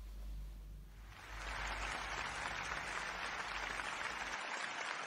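Applause, starting about a second in and holding steady.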